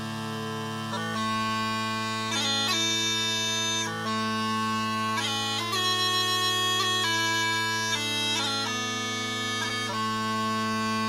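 3D-printed Lindsay System Scottish smallpipes playing a slow strathspey: a steady drone under a chanter melody of long held notes, each change marked by quick grace notes.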